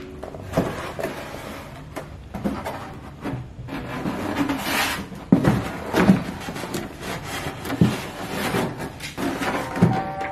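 A sheet of 6 mm foam board being bent and handled on a wooden workbench: irregular handling noise with several sharp knocks.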